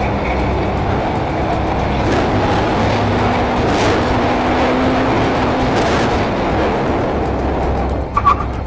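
Sport motorcycle riding at a steady pace: a constant engine drone under heavy wind rush on the microphone. A few short high-pitched chirps come in near the end.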